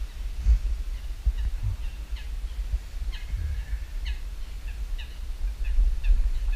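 Birds chirping in short repeated calls over a steady low rumble.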